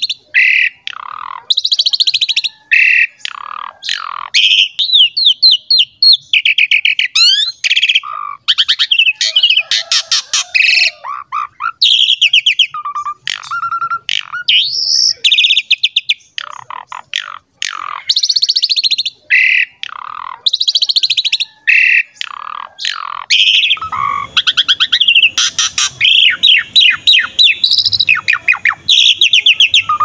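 Javan pied starling (jalak suren) singing loudly and without pause, in full song: a varied run of short whistles, squawks and rapid rattling chatter.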